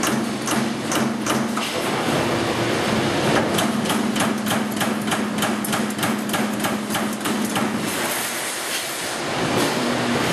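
Amada Pega 244 CNC turret punch press punching holes in sheet metal: a rapid, even run of sharp metallic hits, about three to four a second, over a steady machine hum. The hits pause about two seconds in, resume, and stop near the end.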